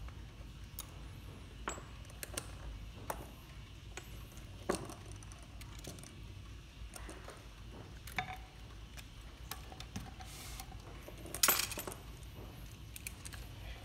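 Scattered light metallic clicks and clinks as a screwdriver with socket bits and a brass clock movement are handled, with the loudest clatter about eleven and a half seconds in.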